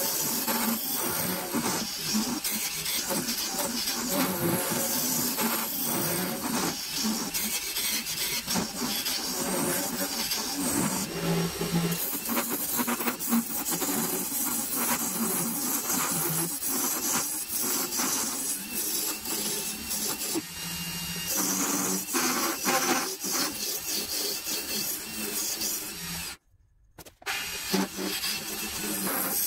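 Wood lathe spinning a wooden blank while a hand-held turning tool cuts into it: a continuous rough scraping and shaving hiss with uneven chatter as shavings fly. The sound drops out for under a second near the end, then resumes.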